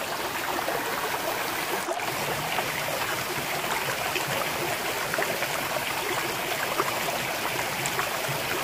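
Running water trickling and splashing steadily, a continuous rushing hiss flecked with small droplet ticks.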